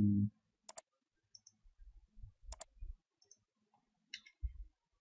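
Computer mouse button clicks: two crisp press-and-release clicks about two seconds apart, with a few faint low thumps around them.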